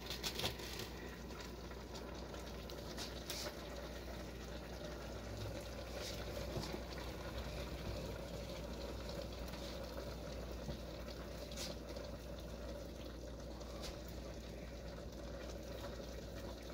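Broth simmering under a glass lid in a skillet of bihon rice noodles as they soften: a soft, steady bubbling with a few light clicks.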